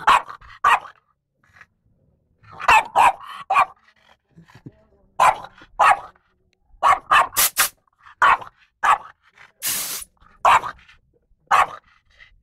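French bulldog barking repeatedly in quick clusters of short, loud barks at an air compressor's blow gun. About ten seconds in comes one brief hiss of compressed air from the gun.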